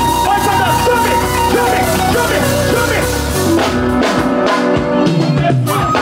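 Loud music: a singing voice over a drum kit and guitar with a steady beat.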